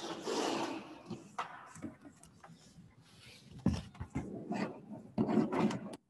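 Rubbing and scraping noises with a few sharp knocks, louder near the end, then cut off suddenly.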